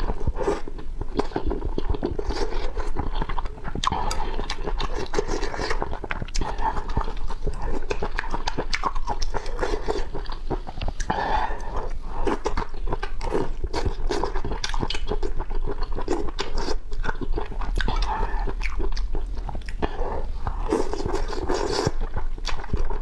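Close-miked slurping of noodles out of spicy broth, with wet chewing and mouth smacks coming thick and fast, one mouthful after another.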